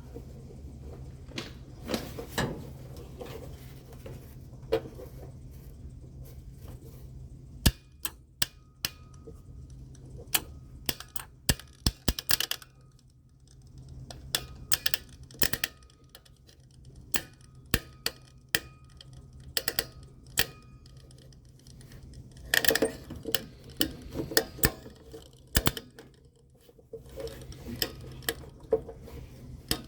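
Air conditioner compressor contactor chattering: sharp clicks, some single and some in quick rattling clusters, over a steady low electrical hum. Chatter like this is the sign of intermittent low control voltage to the contactor coil.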